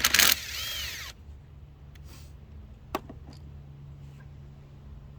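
A short, loud burst of hand-tool noise at the start, working on the engine, with a ringing metallic tail for about a second. A single click comes about three seconds in, over a steady low hum.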